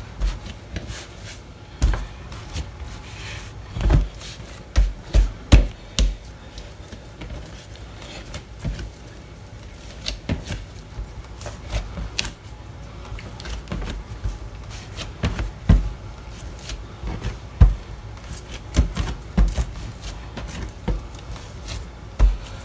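Stiff bolillo bread dough being kneaded by hand on a work surface: irregular dull thumps and knocks as the dough is pressed and pushed against the table.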